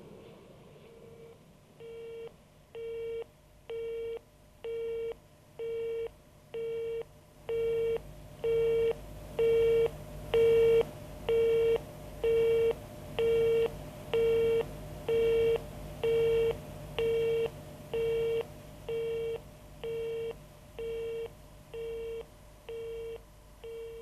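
Telephone busy tone: a steady beep switching on and off about once a second, swelling louder to a peak midway and then fading away.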